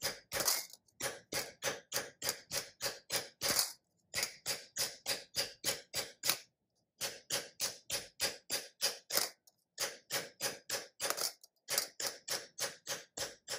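Nylon mallet hammering a copper disc to sink it into a dish shape: quick, even blows about three or four a second, in runs broken by a few short pauses.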